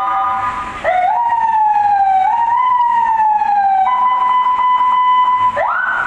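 Loud electronic vehicle siren fitted to a Mitsubishi Pajero, being switched through its tones: a brief steady chord of several notes, then a long wail that falls slowly with small upward steps, a steady single tone for about a second and a half, and quick repeated rising whoops near the end.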